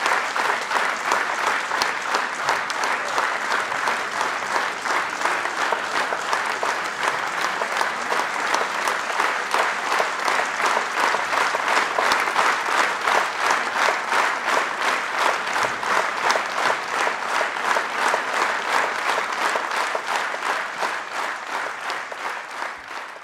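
Theatre audience applauding at a curtain call, clapping with a steady rhythmic pulse and tapering off near the end.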